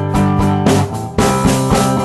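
Recorded rock song: strummed guitar over a drum kit, with no vocals. The music dips briefly a little after a second in and then comes back in at full level.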